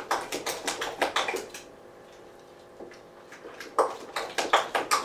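Stirring a thick flour paste in a large stainless steel mixing bowl, beating out the lumps: quick scraping, knocking strokes against the bowl, several a second, that stop for about two seconds midway and then start again.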